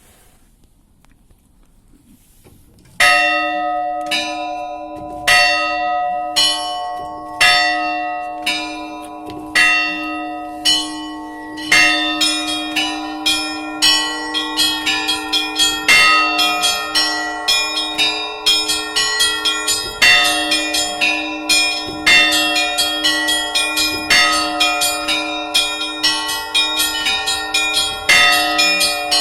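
Church bells rung by a bell ringer. After about three seconds of quiet, a large bell is struck about once a second, its low hum ringing on. About twelve seconds in, smaller bells join in a fast, dense chime over it.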